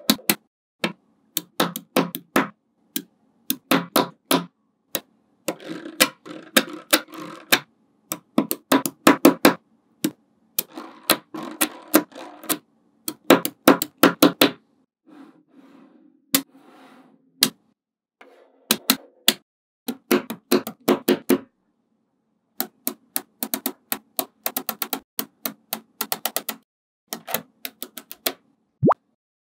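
Small magnetic balls clicking as they snap onto one another and onto a structure built of them, in quick irregular runs of sharp clicks separated by short pauses.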